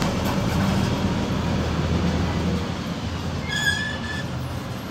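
Interior noise of a PAZ 4234-04 city bus on the move: steady engine drone and road rumble. A brief high-pitched squeal comes about three and a half seconds in.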